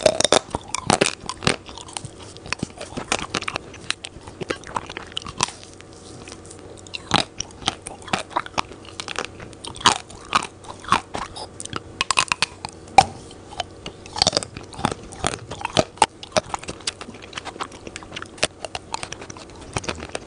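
Close-miked biting and chewing of a chocolate-coated Magnum ice cream bar: the hard chocolate shell cracks in many sharp, irregular crunches and crackles.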